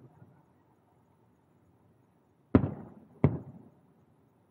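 Two aerial firework shells bursting, two sharp booms about three-quarters of a second apart, each dying away in a short rumble.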